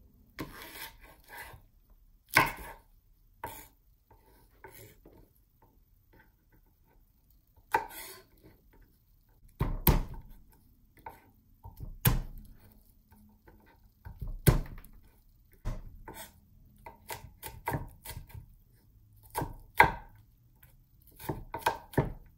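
Chef's knife chopping green chili peppers on a wooden cutting board: irregular knocks of the blade on the board, with several sharper, louder strikes scattered through.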